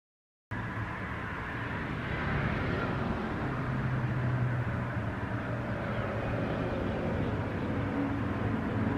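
Steady low rumble and hum of background noise, cutting in suddenly about half a second in and holding steady.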